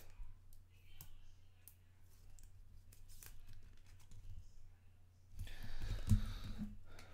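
Trading cards being handled: scattered light clicks of cards sliding and tapping against each other, then a longer rustle about five and a half seconds in.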